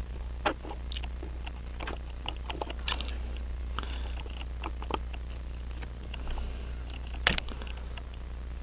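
Small, irregular clicks and taps of watchmaker's tools and tiny metal watch parts being handled on the bench, with one sharper click about seven seconds in, over a steady low hum.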